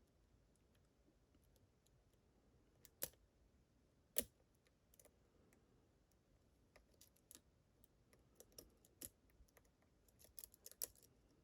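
Faint, scattered metal clicks and ticks of a lock pick and tension wrench working the pins of a Medeco-type lock, with two louder clicks about three and four seconds in and a quick cluster near the end.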